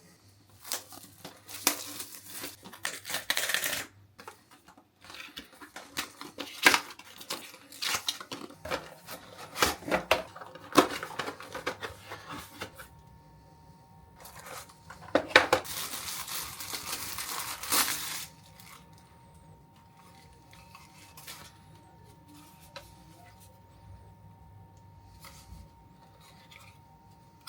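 Router packaging being opened and handled: cardboard and plastic tearing, crinkling and rustling, with sharp clicks and knocks of parts being set down. It comes in bursts for about the first eighteen seconds, then drops to faint, occasional handling.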